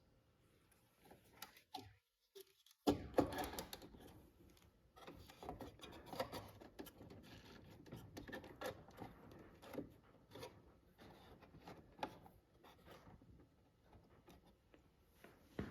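Faint clicks, taps and rustles of small parts being handled: a Railpro decoder board's plug and wiring being fitted onto the circuit board and pushed into an HO-scale model locomotive's plastic shell. A few sharper clicks stand out, the first about three seconds in.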